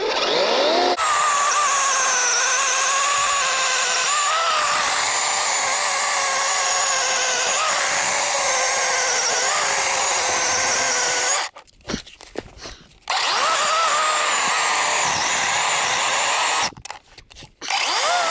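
DeWalt 20V cordless chainsaw with a 12-inch bar cutting through a log. The electric motor and chain whine rises quickly as the trigger is pulled, then runs steadily with its pitch wavering under the load of the cut. It stops about eleven seconds in, runs again a second and a half later, stops once more and starts briefly near the end.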